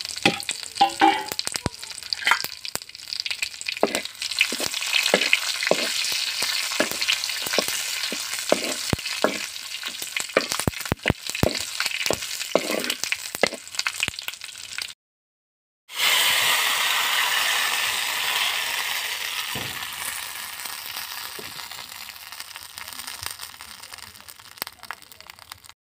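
Bay leaves, cumin seeds and dried red chillies frying in hot oil on a flat iron pan for a tempering: steady sizzling with many crackles and the clicks of a metal spoon scraping the pan. After a brief silence, a loud sizzle as the hot spiced oil meets the khichuri, dying away gradually over several seconds.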